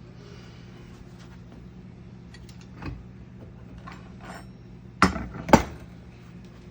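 Metal casting gear clinking and knocking as it is handled, with two sharp knocks about five seconds in, over a steady low hum.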